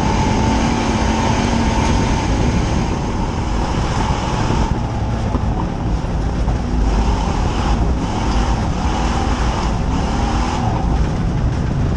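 Dirt-oval stock car's engine heard from inside its cockpit, running loud at speed with the engine note rising and falling a little as the throttle changes.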